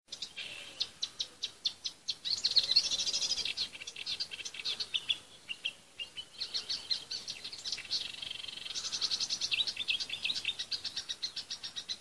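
Marsh warbler singing: a fast, varied run of high chattering notes and trills, broken by a few short pauses.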